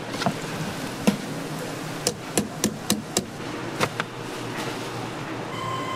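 A long-handled wire mesh frying strainer knocking against a steel draining tray as fried fish cake pieces are shaken out of it. The sharp knocks come singly at first, then in a quick run of about five between two and three and a half seconds in.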